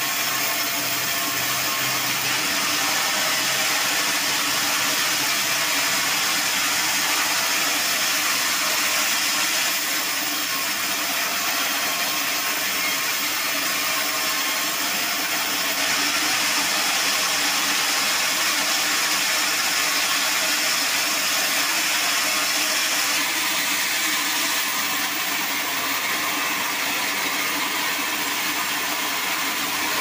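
Band sawmill running and sawing through a log: a steady, even noise with a faint motor hum beneath it.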